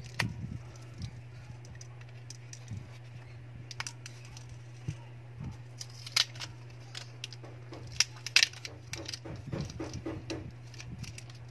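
Light clicks and taps of a smartphone's plastic frame and a loose replacement LCD panel being handled and fitted, the sharpest about six and eight seconds in, with a steady low hum underneath.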